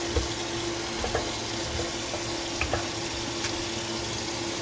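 Spoon stirring and spreading rice in water in a rice cooker pot, with a few light clicks of the spoon against the pot over a steady hiss and a low hum.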